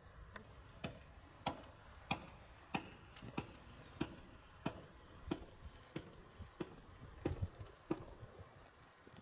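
Footsteps on a concrete walkway at a steady walking pace, about three sharp steps every two seconds, stopping shortly before the end.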